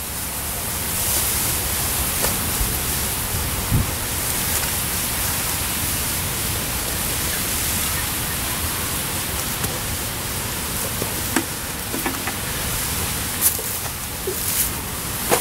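A steady outdoor hiss with a few faint clicks and taps scattered through it.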